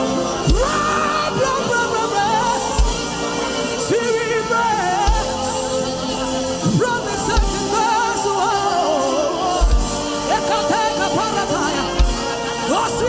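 Gospel worship music: a voice singing wordless, wavering melodic lines over sustained held chords, with a soft low drum beat every second or two.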